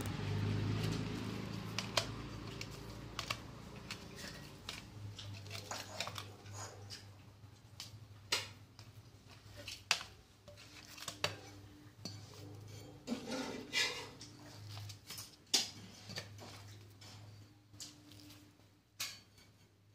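Scattered clicks and clinks of fingers and fried banana fritters against a stainless steel plate, over a steady low hum.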